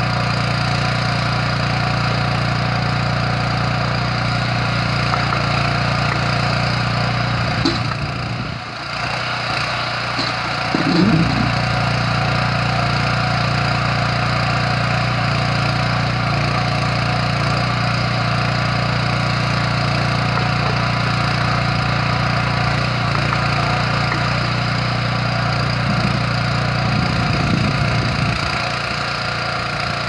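9 hp petrol engine of a Kellfri towable backhoe running steadily while it drives the hydraulic digging arm. The note dips briefly about a third of the way in and wavers again near the end.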